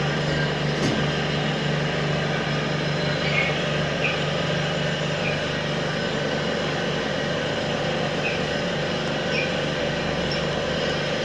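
A steady mechanical hum with an even whooshing noise, like a running motor, over which small birds give a few short, faint high chirps now and then.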